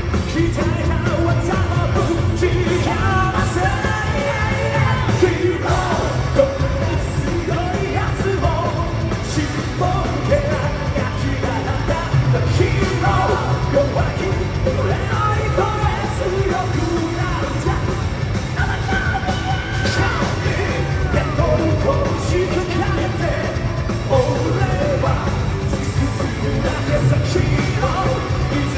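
Live Japanese rock band playing at full volume: a male lead vocalist singing and shouting over electric guitars, bass and drums.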